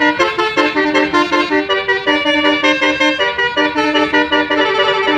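Bus telolet horn, a set of electric horns playing a melody of sustained notes that step from pitch to pitch without pause.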